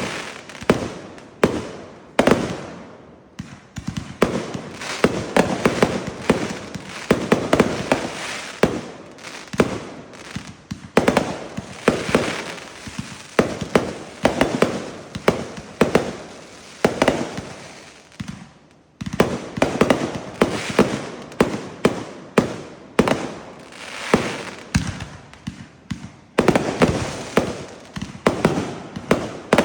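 Fireworks going off in a rapid, continuous barrage of bangs and crackle, with a brief break about nineteen seconds in.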